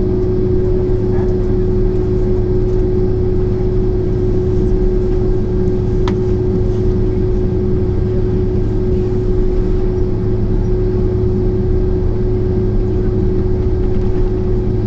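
Steady cabin noise of a Boeing 767-400ER with its engines at idle while waiting for takeoff: an even low rumble with a steady hum. A single faint click about six seconds in.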